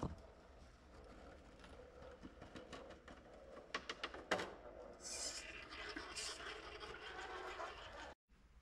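RC rock crawler clambering over boulders: tyres and chassis scraping and rubbing on the rock, with a few sharp knocks a little before halfway.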